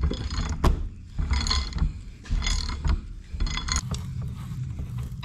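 Metal clicking and grating in short bursts, about one a second, as the threaded end cap of a hydraulic cylinder is worked loose and unscrewed with a long wrench.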